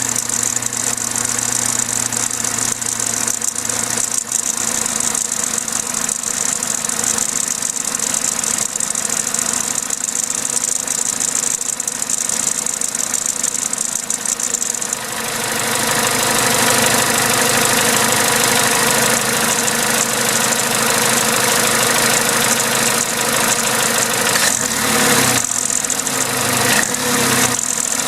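Vauxhall/Opel A14XER 1.4-litre four-cylinder petrol engine running with a timing-chain rattle; it grows louder and fuller about halfway through. A garage called the rattle normal for this engine, but the chain later jumped a tooth, so it is the sign of a worn timing chain.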